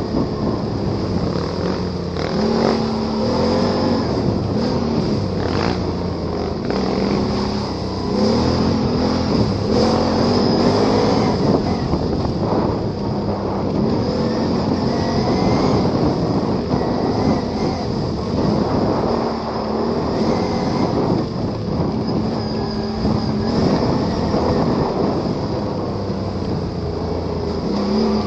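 Can-Am Renegade ATV's V-twin engine revving up and down repeatedly while riding off-road, over a dense rush of noise, with scattered knocks and rattles from the rough ground.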